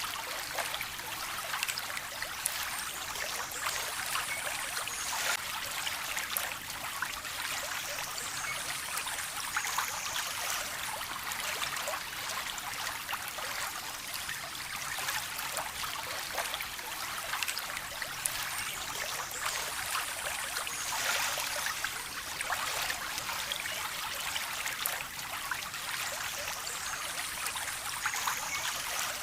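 Shallow stream of water trickling and splashing steadily, a fine even babble of small splashes.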